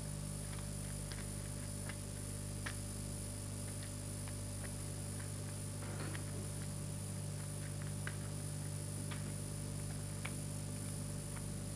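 Steady electrical hum with faint, irregular clicks and crackles scattered through it: the background noise of an old film soundtrack.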